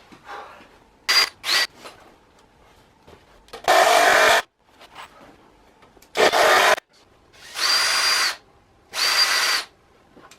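Power drill run in short bursts into the wooden frame of a workbench: two quick blips, then four longer runs of half a second to a second each, with a steady high motor whine.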